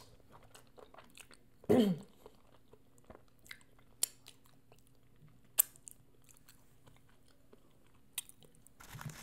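Close-miked eating sounds of a person tasting a saucy crawfish boil: soft chewing with sharp lip smacks and sucking clicks, a few louder ones about four, five and a half, and eight seconds in. About two seconds in comes one short, loud vocal 'mmm'-like exclamation that falls in pitch.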